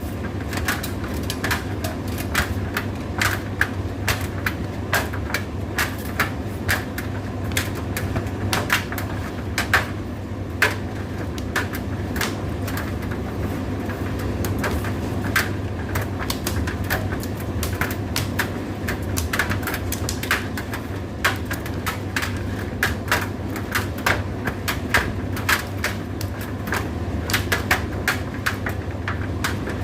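Indesit IDC8T3 condenser tumble dryer running: a steady low motor hum with frequent irregular clicks and knocks from the turning drum and its load.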